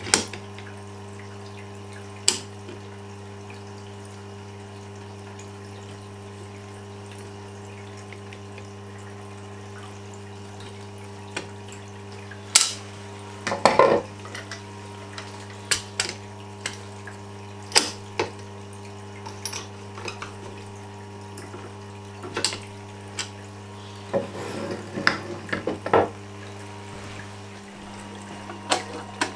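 Tormek T-8 wet grinder running with a steady electric-motor hum, its stone turning through the water trough. Over it come sharp clicks and knocks of a gouge and its metal sharpening jig being handled and set on the bench, bunched about halfway and again near the end.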